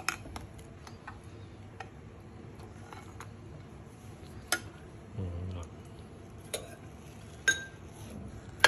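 Metal spoon clinking and scraping against a small ceramic bowl of crushed graham crackers, scattered light taps with a few sharper clinks in the second half.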